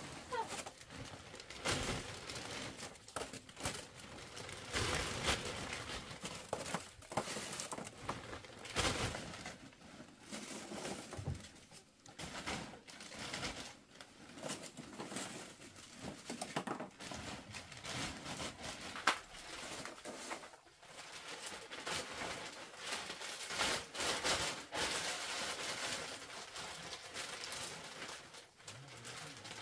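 Large plastic bag rustling and crinkling as puffed corn sticks are pushed into it by hand, in irregular crackles and rustles.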